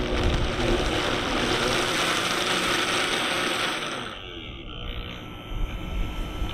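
Vitamix blender running at high speed, churning frozen pineapple, avocado and cucumber. About four seconds in it is switched down and the motor's noise drops away.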